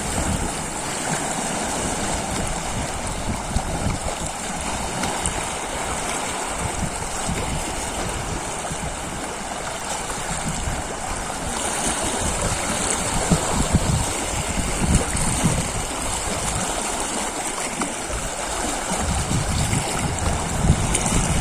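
Small waves washing over a shallow, rocky shoreline, giving a steady rush of water. Under it, wind rumbles on the microphone, growing stronger near the end.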